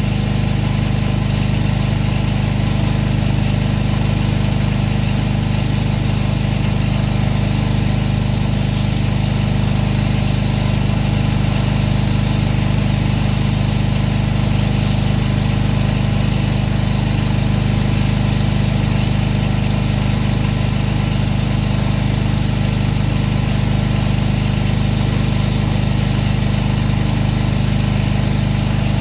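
Pressure washer's gas engine running steadily at a constant speed, with an even hiss over it.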